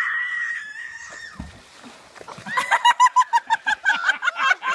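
A long, high-pitched scream as a child swings out over a river on a rope swing, and a splash into the water about a second and a half in. From about halfway through comes rapid, high-pitched laughter.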